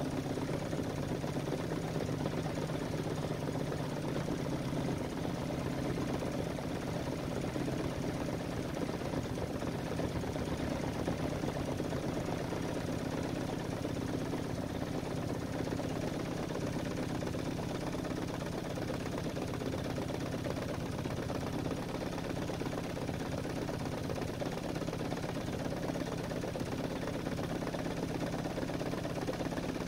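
A vehicle engine idling steadily while it warms up after a cold start, heard from inside the cab.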